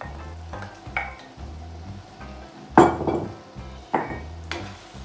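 Wooden spoon scraping and tapping against a ceramic mortar and a steel pan as a paste is knocked out: four sharp knocks, the loudest about three seconds in. Soft background music underneath.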